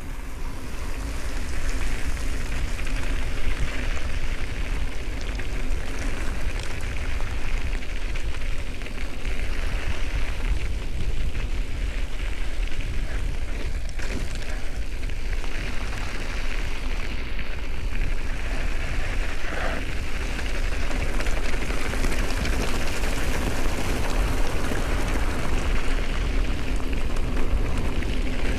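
Mountain bike riding a dirt trail: a steady rush of wind on the microphone mixed with tyre and trail noise from the ride.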